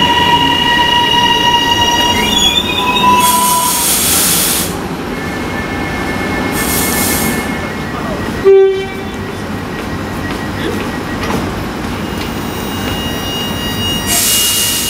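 High Capacity Metro Train electric multiple unit standing at the platform: a steady high electrical whine, several bursts of compressed-air hiss, and about halfway through one short, loud horn toot.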